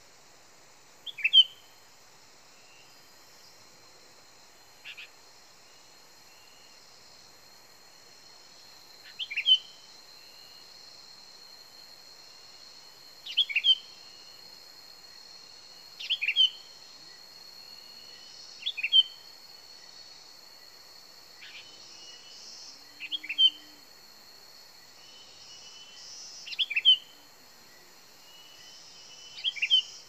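Sooty-headed bulbul (kutilang) decoy bird giving short, loud chirping calls, each a quick cluster of notes, about one every three or four seconds, with a couple of fainter calls in between.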